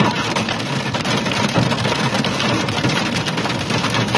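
Violent rainstorm: strong wind and driving rain in a dense, steady rush.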